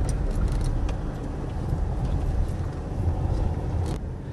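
A car driving slowly along a rough forest track: a steady low engine and road rumble, with scattered light knocks and rattles.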